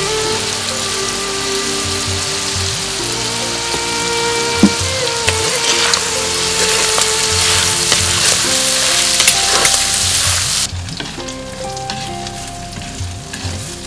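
Prawns with dried chillies and whole spices sizzling hard in hot oil in a clay pot. The sizzling drops away abruptly about ten seconds in, leaving a quieter sound of the pot being stirred with a ladle.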